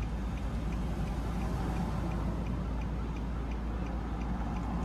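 Steady low rumble of a helicopter hovering some way off, with a light regular ticking about three times a second.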